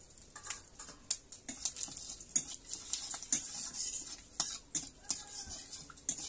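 Metal spatula scraping and clinking against a steel kadai in quick, irregular strokes while whole spices fry in oil with a faint sizzle.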